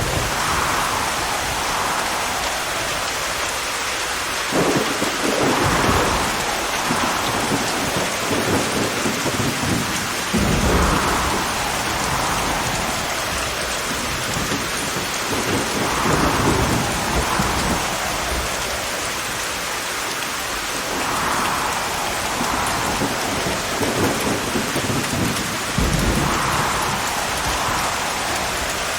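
Heavy rain pouring steadily in a thunderstorm, with low rolls of thunder rumbling up several times.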